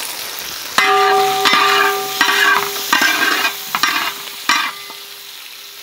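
A metal spatula scraping and stirring shallots and green chillies frying in oil in a large metal pan, in strokes about every 0.7 seconds over a light sizzle, with a steady ringing tone under the strokes; the strokes stop and the sizzle fades near the end.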